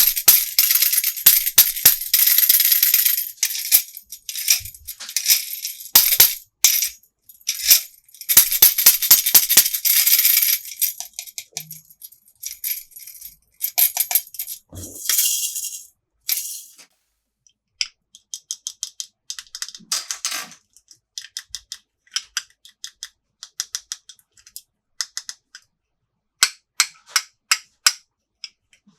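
Small plastic toy pieces and packaging being handled: a dense rattling and rustling for about the first ten seconds, a few shorter rattles, then a run of light plastic clicks and taps.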